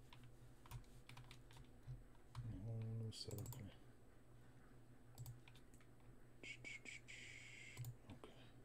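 Faint scattered clicks and taps of a computer keyboard and mouse, with a brief low hum about two and a half seconds in and a short rustle near the end.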